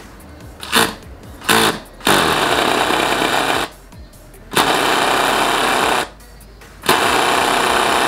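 Electric air horn on a Honda Ruckus, hooked up straight with just two wires, sounding as a harsh, raspy buzz rather than a clean horn tone. It gives two short taps, then three long blasts of about a second and a half each. The owner calls this result not the optimal outcome.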